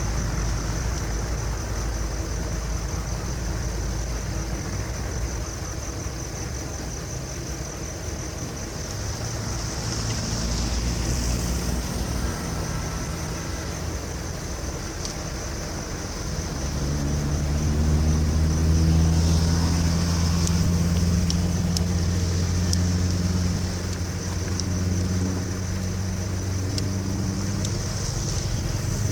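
A motor vehicle's engine running steadily in the background, then growing louder as it passes close by about halfway through, before easing off again; it is the loudest sound here. Under it lies a constant low rumble of traffic or water noise.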